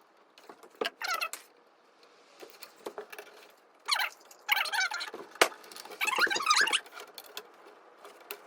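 Hand work at an electrical panel: irregular metallic clicks, clinks and rustles of tools and wire being handled, busiest from about four to seven seconds in.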